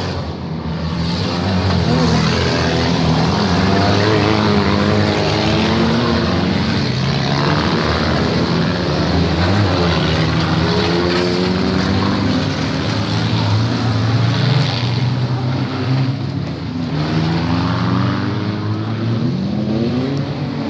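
Engines of several demolition-derby cars revving and running at once, their pitch rising and falling as they accelerate and slow.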